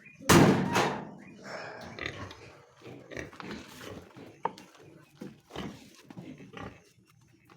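Pigs grunting in short, irregular calls, with one loud, sharp noise about a third of a second in that is the loudest sound.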